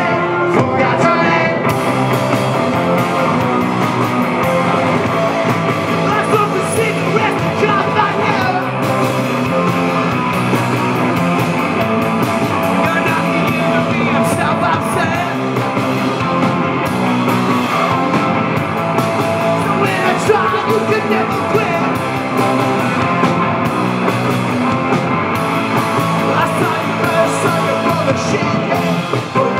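Live rock band playing loud and steady: electric guitars and a drum kit, with a voice singing over them.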